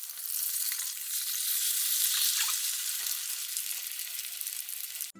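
Egg omelette mixture frying in hot vegetable oil: a steady sizzle with small crackles, swelling about two seconds in and cutting off abruptly near the end.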